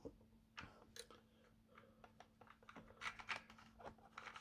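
Faint, scattered clicks and taps of a plastic M.A.S.K. Switchblade toy vehicle being handled, coming a little more often near the end.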